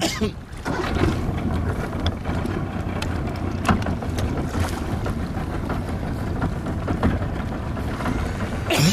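Wind buffeting the microphone in an open boat on a river, a steady rumble with water lapping, a few faint clicks, and a brief loud rustle of handling near the end.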